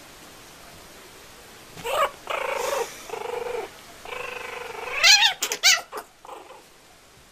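A kitten and a puppy play-fighting, with a run of drawn-out, pitched animal cries starting about two seconds in, then a burst of short cries that rise and fall in pitch about five seconds in.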